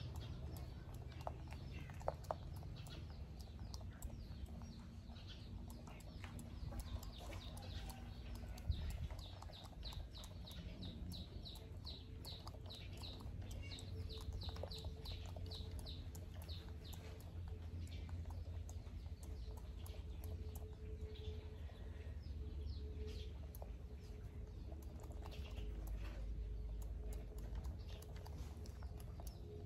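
Young macaque grooming a man's hair: scattered soft clicks and rustles of fingers and lips picking through the hair, over a low steady rumble. In the middle a bird calls in a fast run of high chirps, about three a second.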